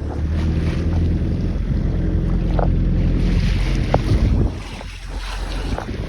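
A boat's engine running steadily, with wind buffeting the microphone and water noise over it. The engine drone drops away about four and a half seconds in.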